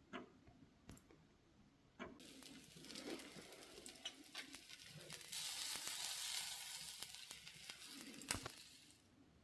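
Wood fire crackling under a spit-roasting chicken, with a sizzling hiss that swells from about two seconds in, is loudest past the middle and dies away near the end. Sharp pops of burning wood are scattered through it.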